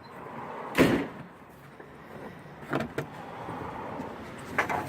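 Sharp knocks from hands and tools working on a car's trunk trim panel: one loud clunk a little under a second in, then two softer clunks near the middle and near the end, over a steady hiss.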